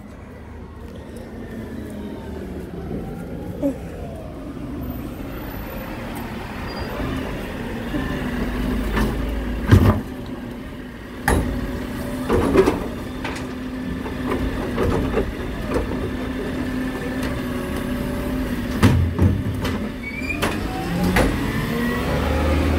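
Side-loading garbage truck running, its engine growing louder as it pulls up, then its automated arm lifting and tipping a wheelie bin to empty it, with several loud bangs about ten to thirteen seconds in and another later. A low rumble rises near the end.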